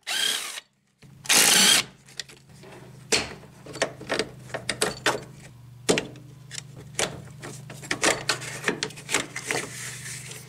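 A cordless 20-volt drill runs in two short loud bursts, backing out the bolt that holds the air-conditioning line fittings. After that come scattered clicks and clinks of the metal AC lines being worked loose by hand, over a low steady hum.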